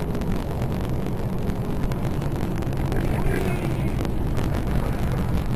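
Steady low rumble of a vehicle on the move: engine and road noise.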